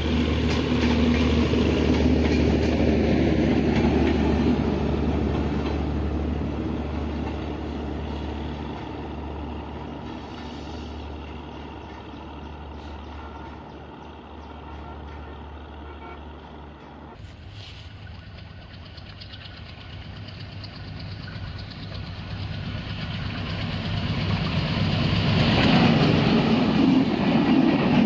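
Intercity express train's passenger coaches rumbling past on the track, fading away over the first half. Then another train approaches and grows loud as its coaches run close by near the end.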